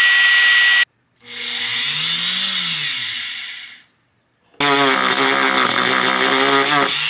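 An electric drill runs with a steady whine for under a second, boring out the hot glue in a sanding drum. Then a Dremel rotary tool carrying a sanding drum cored with hot glue spins up and winds down, its pitch rising and then falling. About halfway through it starts again and runs steadily, the drum sanding a wooden block.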